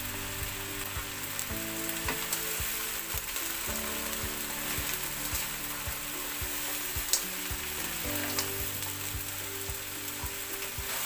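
Small crabs sizzling in hot oil in a frying pan while a spatula stirs and tosses them, with a few sharp clicks of the spatula against the pan, the loudest about seven seconds in.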